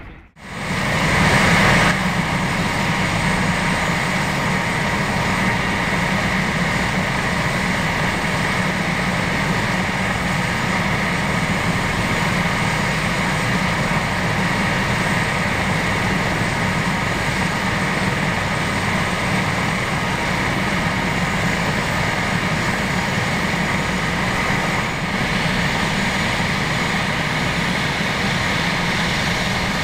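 Airbus H145 twin-turbine rescue helicopter running on the ground: a steady turbine whine over the even rush of the turning rotor.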